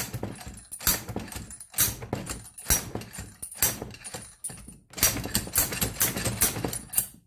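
Repeated metal-on-metal clanks from a Mini donut spring compressor being worked as a slide hammer against a seized rear suspension trumpet clamped in a vise. The knocks come about once a second and get quicker near the end, each with a short ringing tail.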